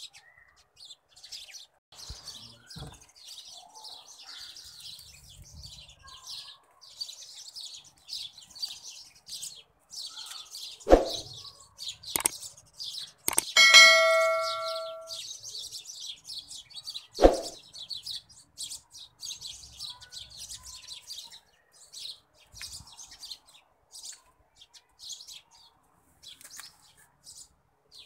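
Kofta kebab patties sizzling and crackling in hot oil in a frying pan. Metal tongs knock against the pan a few times, and one clang about thirteen seconds in rings on for a second or so.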